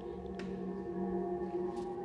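Eerie steady drone of several held tones layered together, a 'sound of Jupiter' space recording played back loud from a video.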